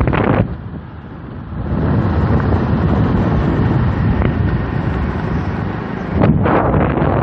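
Wind buffeting the microphone in a low, rough rumble, as from a moving vehicle. It eases for about a second near the start, then comes back, with a louder gust near the end.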